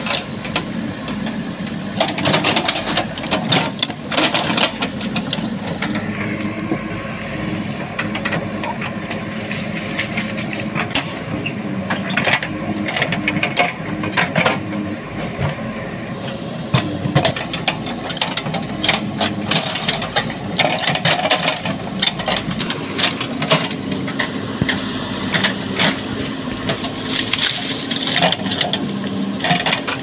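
JCB 3DX backhoe loader's diesel engine running steadily under load, with frequent sharp cracks and rattles as it pulls and breaks down a clump of thorny bamboo.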